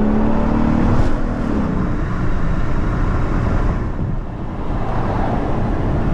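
The Genesis R-Spec's 5.0-litre V8, tuned for E85, running steadily while the car cruises, heard inside the cabin with road and tyre noise. The engine's hum is clearest in the first second or so, then blends into an even rumble, with a brief lull about four seconds in.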